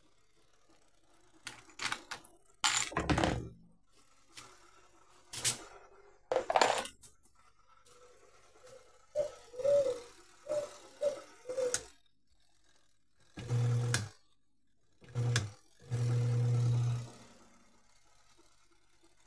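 Knocks, clicks and rattling of plastic and metal parts of a tanquinho washer being handled and fitted, with a few short squeaks midway. Near the end a low hum starts and stops three times in short bursts.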